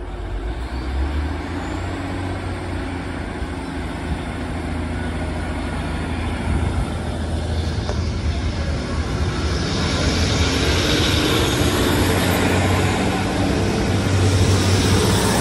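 Class 150 Sprinter diesel multiple unit's underfloor diesel engines running with a steady low hum. From about ten seconds in the engine and wheel-on-rail noise grow louder as the train pulls away past the platform.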